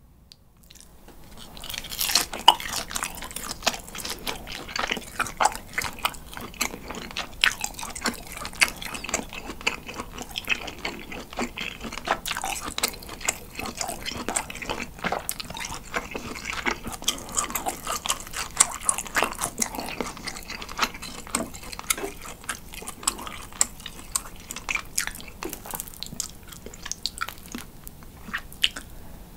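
Close-up chewing of pan-grilled cheese dipped in condensed milk: a dense run of quick clicks and smacks of the jaw and tongue, starting about a second in.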